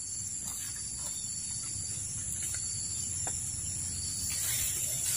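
Steady high-pitched chorus of forest insects, with a few faint clicks.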